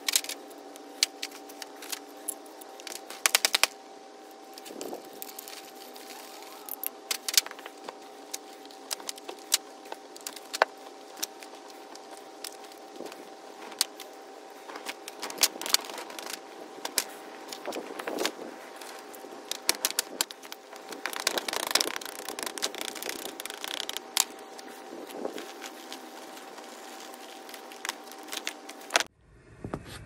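Hot oil-bonded casting sand moulds being broken open after a metal pour: irregular crackling, clinks, rattles and scrapes of sand, metal and steel flasks, with the sand smoking and burning. A faint steady hum runs underneath, and the sound changes abruptly near the end.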